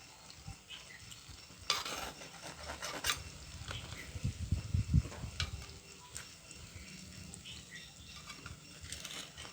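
Cooking pot being handled and stirred, with scattered scrapes and clinks. A run of low thumps comes about four to five seconds in.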